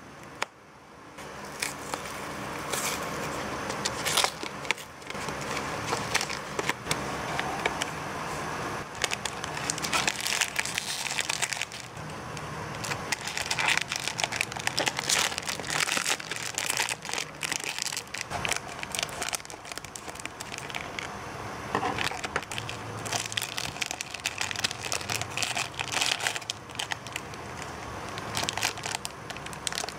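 Foil wrapper and thin plastic bag of a blind-box figure crinkling and crackling in the hands as it is unwrapped, in irregular bursts of small crackles.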